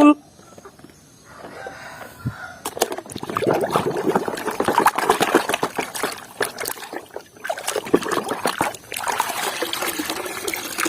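Water splashing and trickling with many small knocks as a plastic toy vehicle is washed by hand in water, starting about a second in.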